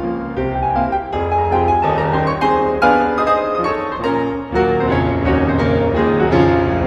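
Piano music played back from a vinyl LP on a Dual 1229Q turntable.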